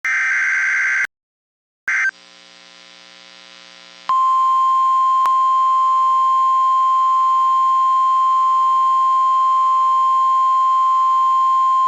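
NOAA Weather Radio test signal: a raspy digital data burst for about a second, a short second burst, then about four seconds in a loud steady single-pitch alert tone begins and holds. This is the 1050 Hz warning alarm tone that sets off weather radio receivers.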